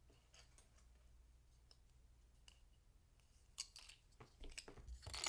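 Faint, scattered plastic clicks and taps from a budget mechanical keyboard and its keycaps being handled, with a quick run of louder clacks near the end.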